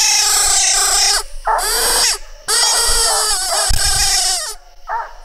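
Treeing Walker hound pup bawling at the tree where she has treed, in long, drawn-out, wavering howls with short breaks between them. Shorter barks start up near the end.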